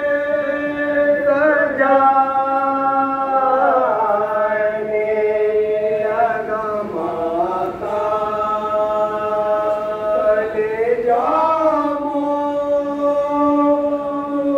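Male voices chanting a Muharram mourning lament (nauha) in long, drawn-out notes, sliding to a new pitch every few seconds.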